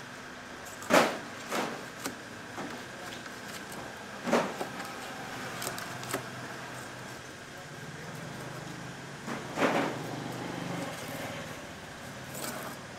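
Knife cutting and scraping along a giant sunfish's thick skin as the skin is separated from the body. Short rasping strokes come about 1, 4 and 10 seconds in, with smaller ones between, over a steady low background hum.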